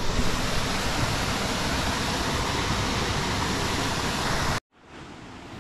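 Rushing water of a rocky creek and small waterfall, a steady hiss. It cuts out abruptly near the end and comes back quieter.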